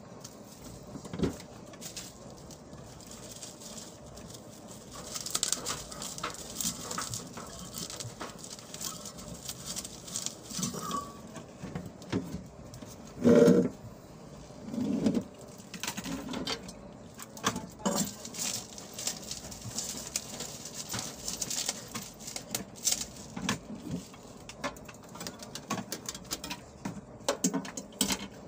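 Scattered light clicks, taps and rustles as metal floodlight fixtures and their wiring are handled, with a louder low, hollow sound about 13 seconds in.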